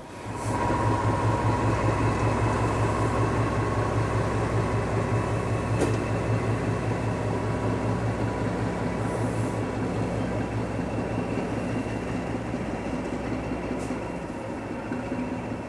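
Class 14 diesel-hydraulic shunter's Paxman Ventura engine pulling away with a railcar in tow: a steady pulsing engine drone with a faint whine above it, slowly fading as the locomotive moves off.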